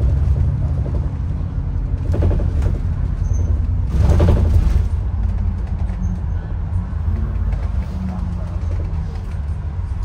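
Bus under way: a steady low engine and road rumble, with two brief creaks, the louder one about four seconds in.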